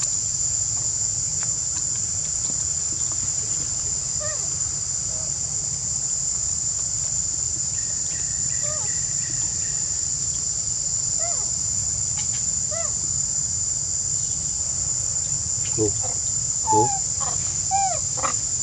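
Steady high-pitched drone of insects, with short rising-and-falling squeaks from young macaques scattered through it, a few louder ones near the end.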